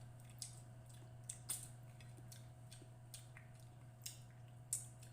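Faint eating sounds from a mukbang meal of fried tilapia and rice: about seven short, wet mouth smacks of chewing, spread unevenly over a steady low hum.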